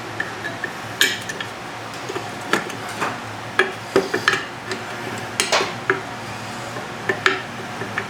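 Metal tools and parts being handled during mechanical repair work: irregular clinks and knocks, about a dozen, spaced unevenly.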